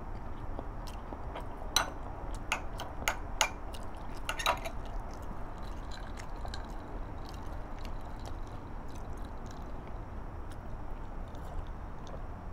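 A person chewing a mouthful of braised caramelized pork and eggs. A handful of sharp clicks sounds between about two and four and a half seconds in, over a steady low hum.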